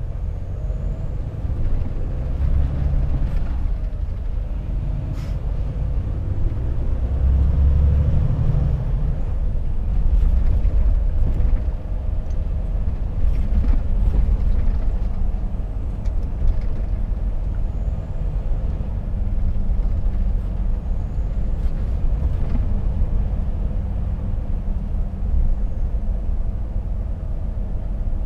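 Volvo FH truck's diesel engine and tyre noise heard from inside the cab, a steady low rumble as the truck speeds up to about 50 km/h and then cruises.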